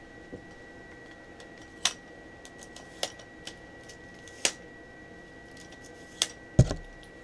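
Scattered sharp clicks and taps of things being handled, about five in all, ending in a heavier knock with a dull thud. A faint steady high-pitched whine runs underneath.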